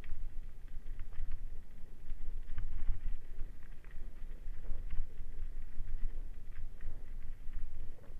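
Ride down a rough dirt trail heard from a bike-mounted action camera: a steady low rumble of wind and vibration on the microphone, with irregular rattles and clicks of gravel and the bike's parts. No engine is heard.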